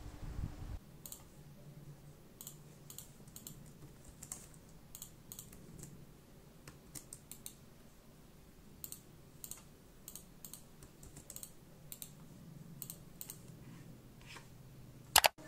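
Typing on a computer keyboard: irregular key clicks at a low level, with one much louder sharp click near the end.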